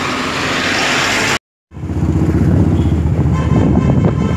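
Street traffic noise building up, a brief dropout about a second and a half in, then a motorcycle ride: the engine running under heavy wind rumble on the microphone.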